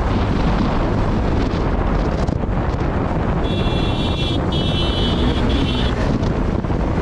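Wind buffeting the microphone of a moving motorcycle, a loud steady rumble with road and engine noise underneath. About halfway through, a high-pitched tone sounds three times in quick succession.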